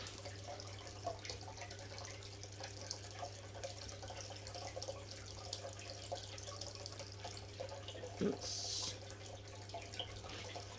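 Faint rustling and small clicks of hands handling pothos leaves and yarn, with a brief hiss about eight seconds in, over a steady low hum.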